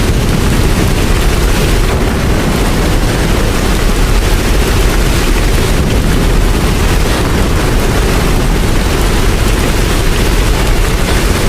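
Steady heavy rain, an even rushing noise with a deep rumble underneath.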